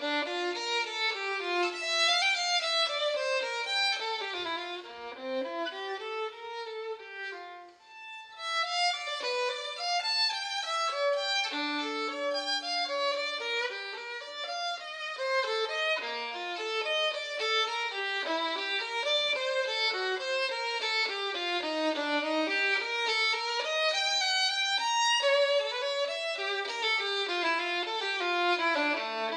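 Background music: a solo violin playing a melody in quick running notes, with a brief pause about eight seconds in.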